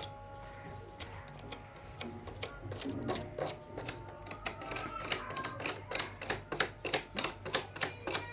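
Metal lice comb being drawn through the bent aluminium fins of an air-conditioner coil to straighten them, making a series of sharp clicks that settles into a regular rhythm of about three a second in the second half.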